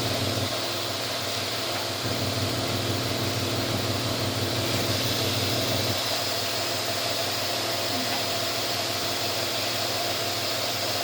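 A steady mechanical hum with a hiss over it, running at an even level with no clicks or knocks.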